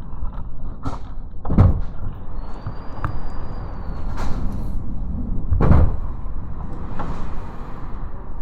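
Typhoon wind gusting hard and rumbling on the microphone, with two heavy bangs, about a second and a half in and again near six seconds in, and some lighter knocks between.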